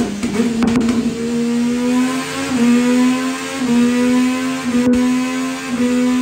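Triumph Daytona 675's inline three-cylinder engine, breathing through Delkevic headers and a PipeWerx silencer, running at high revs under load on a dyno. The pitch climbs slowly, with a slight dip and recovery about once a second.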